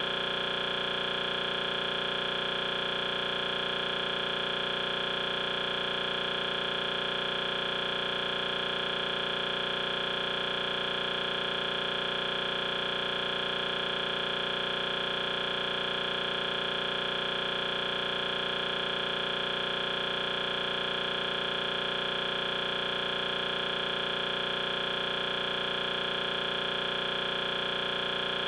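Steady, unchanging electronic buzz made of several fixed tones, a stuck, looping audio fragment from the corrupted camera recording in which the picture has frozen.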